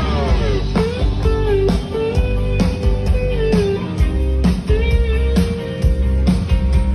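Blues-rock style music led by an electric guitar whose notes bend and slide in pitch, over a steady low accompaniment with regular beats.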